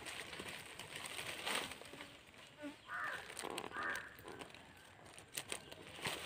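Dry areca palm leaflet strips rustling as hands gather them and bind them into a broom with plastic cord. A bird calls twice, a little under a second apart, about halfway through.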